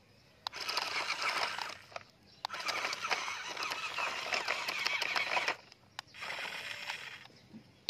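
Plastic toy trucks pushed over gravel and rubble: wheels and bodies crunching and scraping on small stones, in three gritty bursts of a second to three seconds each.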